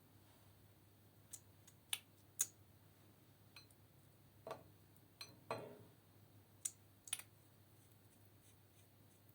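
Sparse sharp clicks and taps, about seven in all, from slime and makeup being handled, with two softer, duller sounds around the middle.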